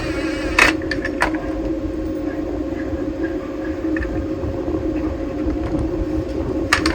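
Small screws and metal latch parts being handled, giving a few sharp clicks, over a steady mechanical hum.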